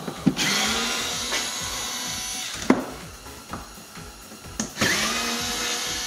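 Small cordless screwdriver with a Torx 20 bit running twice, about two seconds each, backing out the screws of a car door speaker. A steady motor whine with a short pause and a few clicks between the runs.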